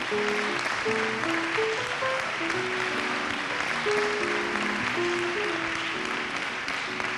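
Studio audience applauding over instrumental music with a stepping melody.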